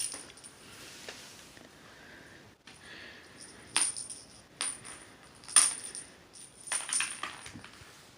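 Small Christmas toy mouse jingling in several short, sharp bursts with a high metallic ring as a pet plays with it.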